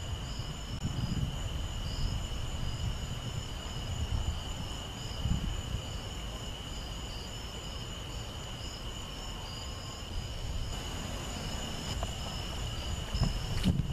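Night insects chirping steadily in high-pitched trills, over a low, uneven rumble that swells near the end.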